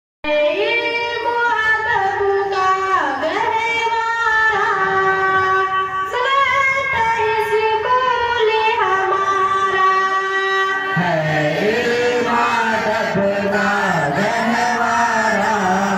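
A girl sings the school anthem (tarana) solo into a microphone in a high voice with long held notes. About eleven seconds in, a boy takes over the song in a lower voice.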